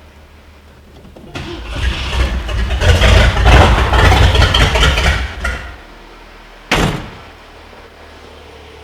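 1966 Ford Thunderbird V8, running with no exhaust system, starting up and revving loudly for about four seconds, then dropping to a low steady idle. A single sharp bang comes near the end.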